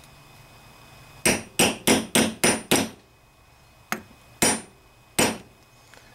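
Hammer tapping the white plastic fuel inlet fitting into the aluminum body of a Walbro carburetor: six quick sharp taps at about four a second, then three more spaced out.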